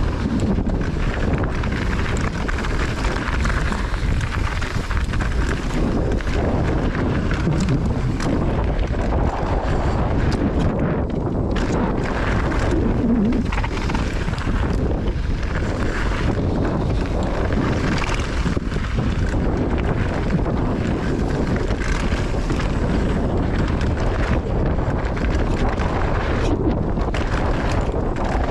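Wind buffeting the microphone of a mountain bike ridden fast down a dirt freeride trail, over the noise of the tyres and the bike rattling beneath it.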